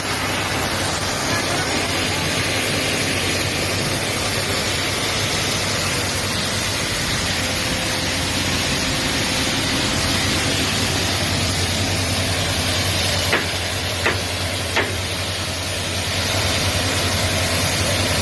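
Steady engine hum under a constant rushing hiss, with three sharp knocks about two-thirds of a second apart near the end.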